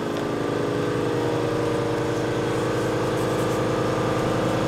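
Electric woodworking power tool running steadily: a constant motor drone with a slight upward creep in pitch.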